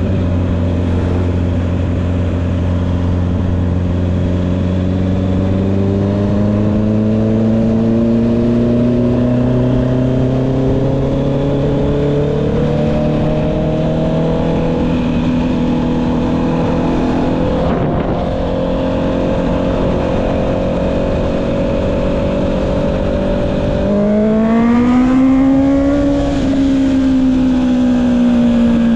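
Honda CB650R's inline-four engine running through an aftermarket Akrapovic exhaust while riding. Its pitch climbs slowly under light throttle for about ten seconds, then holds a steady cruise. About 24 seconds in it rises quickly on a burst of throttle and then slowly falls away as the rider eases off.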